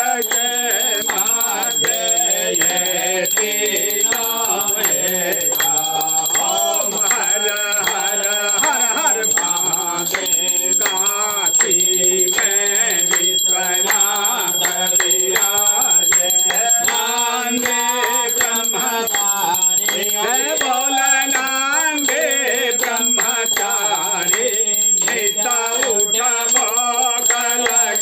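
A group of voices singing a Hindu aarti to Shiva, with a small brass hand bell ringing steadily and hands clapping along.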